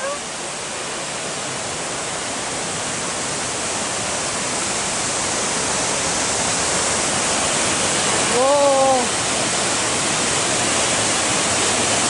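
Steady rush of a cascading waterfall, Pha Suea falls, growing gradually louder as it is approached. About two-thirds through, a person's voice gives one short exclamation that rises and falls in pitch.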